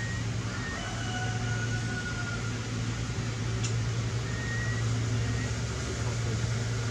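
Steady low hum over an even background hiss, with a few faint, thin whistle-like tones and a single short click about three and a half seconds in.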